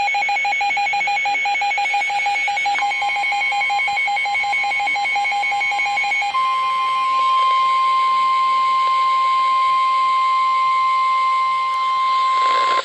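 Rapid, high electronic alert beeping, joined about three seconds in by the steady NOAA Weather Radio warning alarm tone. The beeping stops about six seconds in. The alarm tone carries on alone and cuts off suddenly at the end. It is the attention signal that announces a weather warning about to be read.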